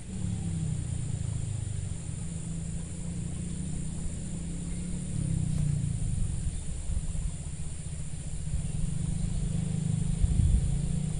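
A low, steady rumble that swells and fades a little, loudest near the end.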